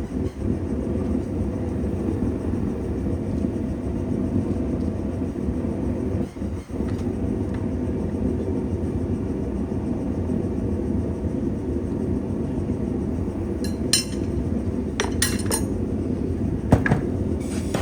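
Steady low roar of a blacksmith's forge, with several sharp metal clinks in the last few seconds.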